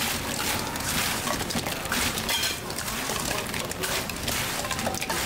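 Sauce-coated fried chicken pieces stirred and tossed in a metal wok with a silicone spatula: a wet, sticky noise with many short clicks and scrapes of the spatula against the pan.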